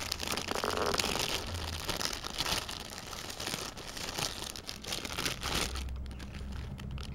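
Clear plastic bags crinkling in irregular crackles as lace trim is handled and pushed back into them.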